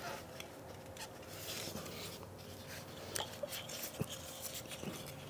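Faint scattered clicks and rubbing as a gloved hand wiggles a VW 1.8L ignition coil, working its rubber-lined boot loose from the spark plug well.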